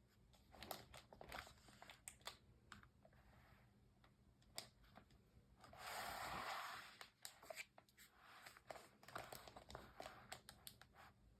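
Near silence with faint scattered clicks of handling and one soft paper rustle lasting about a second, about six seconds in: a picture book's page being turned.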